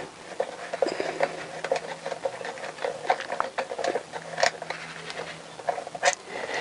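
Handling noise from a wiring loom being pushed and fed through a motorcycle frame: irregular light clicks, knocks and rustles of plastic connectors and cables against the frame tubes.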